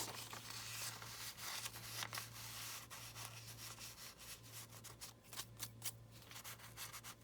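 Paper being handled: soft rustling and rubbing with scattered light ticks, over a faint steady low hum.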